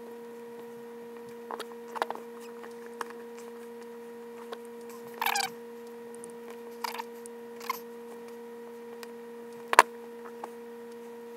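A steady electrical hum runs under light clicks and short scrapes from hands fitting rubber crankcase seals onto the crankshaft of a Stihl MS290 chainsaw engine. There is a sharper click near the end.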